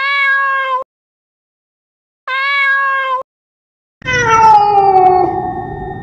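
Domestic cat meowing three times: two short, even meows of about a second each, then a longer meow about four seconds in that slides downward in pitch.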